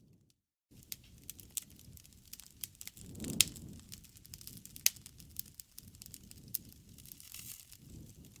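Wood fire crackling and popping over a low rumble of flame, with sharp snaps scattered irregularly and two loudest pops in the middle. The sound drops out completely for a moment just after the start.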